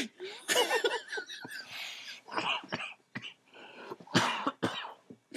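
People laughing hard in short, breathless bursts, broken by coughing.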